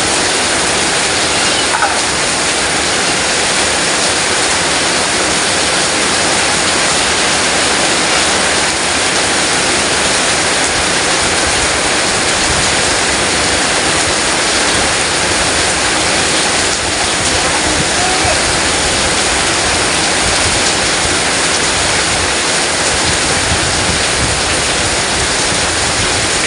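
Heavy tropical downpour: a dense, steady hiss of rain falling hard.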